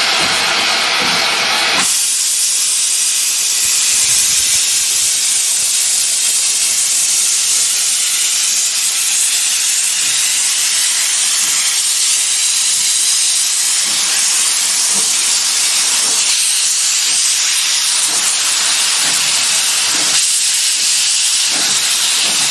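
Loud steady hiss of steam from a vintage steam locomotive's open cylinder drain cocks. It starts abruptly about two seconds in, as the engine pulls away.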